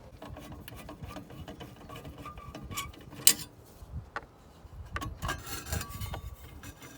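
Hand Phillips screwdriver loosening a screw on the fridge's burner assembly: small scrapes and clicks of metal on metal, with one sharp click about three seconds in.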